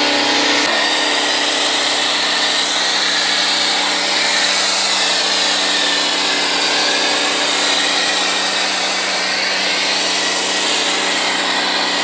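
Bosch UniversalAquatak 125 pressure washer (125 bar, 1500 W) running under load, its motor and pump humming steadily, with the hiss of a foam cannon jetting thick foam onto a car. The hum drops slightly in pitch just under a second in.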